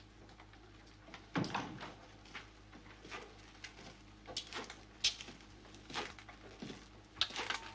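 Boots striking a hard floor as a man walks, a slow, uneven run of footsteps starting about a second and a half in.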